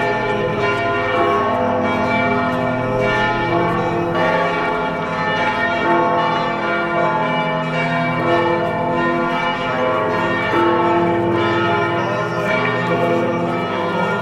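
Church bells ringing continuously, several bells overlapping in a steady peal.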